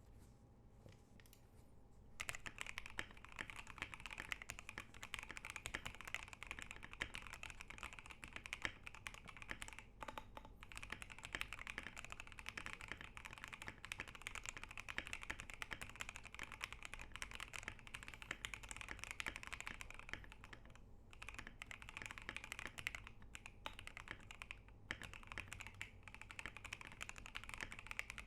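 Custom Corgi65 mechanical keyboard being typed on: lubed OP Black tactile switches (JWK Panda stems in GMK housings) on a polycarbonate plate, in a Poron-foam-dampened case, under Akko ASA keycaps. A few scattered keystrokes, then steady fast typing from about two seconds in, with a few short pauses.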